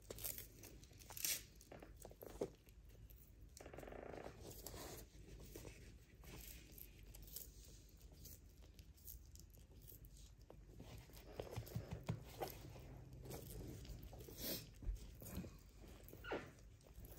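Sulcata tortoise eating: faint crunching and tearing of its food, with a few sharp clicks scattered through.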